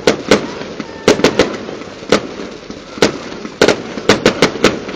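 Fireworks going off all around: an irregular run of about a dozen sharp bangs, some in quick clusters of two or three.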